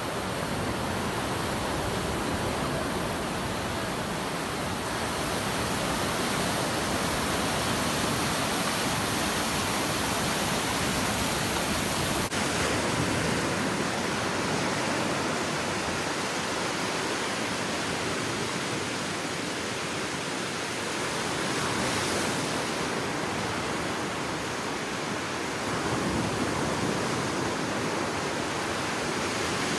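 Ocean surf breaking and washing up a sandy beach: a steady rush of water noise.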